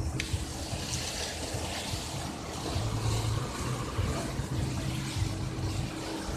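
Steady hiss of water spraying in an automatic car wash bay, over the low hum of an idling car engine.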